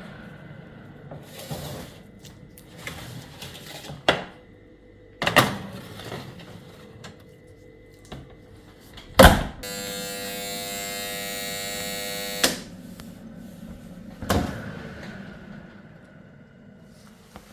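Kitchen handling sounds: a few knocks and thuds, like a door or cupboard shutting. About nine seconds in, a steady electric buzz starts abruptly, holds for about three seconds and cuts off.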